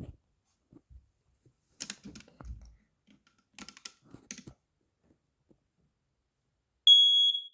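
Scattered light clicks and taps, then near the end a smoke alarm set off by its test button starts a loud, high-pitched beep, the first of a repeating pattern.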